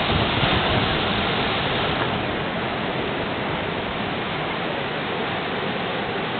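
Sea surf rushing onto the shore, a steady wash of noise that swells in the first couple of seconds and then holds level.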